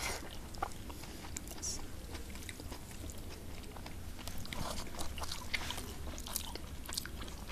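Close-up chewing and mouth sounds of people eating rice and mashed roasted brinjal by hand: soft wet chews, lip smacks and small scattered clicks.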